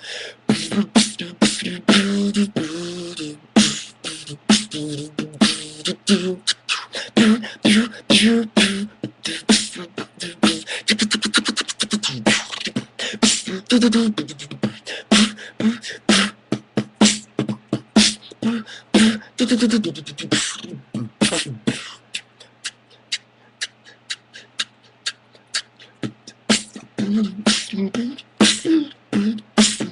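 Solo vocal beatboxing: fast mouth-made kick, snare and hi-hat sounds, with hummed bass and melody lines woven in over the first two-thirds. There is a very fast roll about a third of the way in, and near the end only the percussive sounds carry on.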